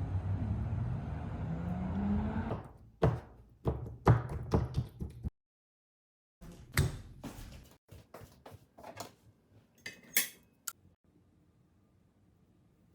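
Kitchen handling sounds: a low steady noise for a couple of seconds, then a run of knocks, clicks and clatters, with a short gap of complete silence in the middle.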